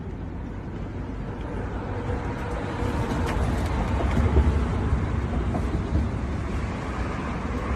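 A vehicle's low engine rumble, growing louder over the first four seconds or so and then holding steady.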